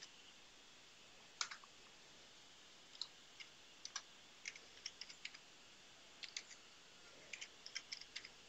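Computer keyboard typing: faint, scattered keystrokes, singly and in short runs, with one louder clack about a second and a half in.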